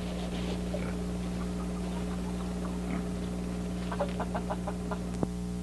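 Chickens clucking in a farmyard, with scattered calls and then a quick run of about seven clucks near the end, over a steady low hum. A sharp click comes just before the end.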